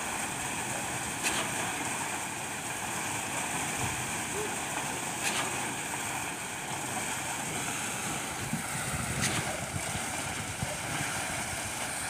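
Steady rumble of construction-site machinery with wind on the microphone, and a short sharp knock about every four seconds.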